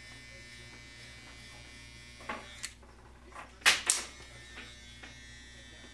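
Andis Master hair clipper running with a steady buzz from its magnetic motor as it cuts hair. About two seconds in come a few short sharp noisy sounds, the loudest pair near four seconds.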